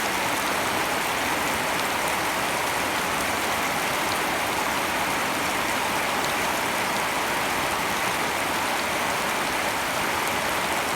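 Steady rain falling, an even dense hiss with faint drop ticks.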